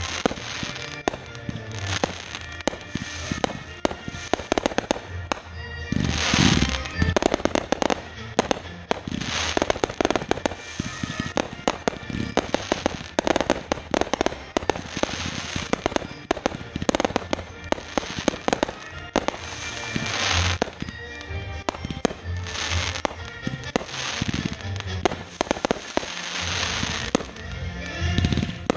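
Fireworks going off in a dense, continuous barrage of bangs and crackles, with louder swells of bursts several times, over music.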